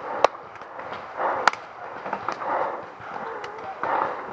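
Paintball markers firing: sharp separate pops, a loud one just after the start and another about a second and a half in, with fainter shots scattered in between.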